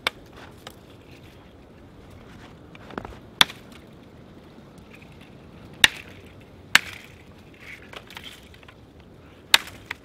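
A bushcraft knife chopping into a frozen green stick held upright, struck about five times at uneven intervals with sharp woody knocks.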